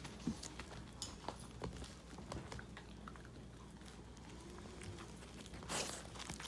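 Miniature pinscher puppies moving about on the pen floor: scattered light taps and scuffles, with a brief louder rustle about six seconds in.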